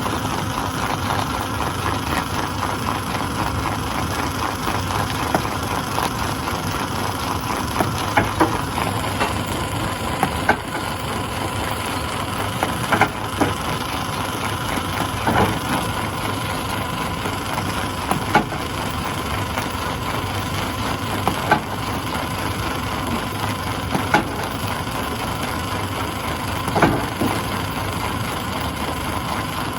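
Stone crusher running steadily, with a low hum and a steady whine, while rocks crack and knock sharply in it every two to three seconds.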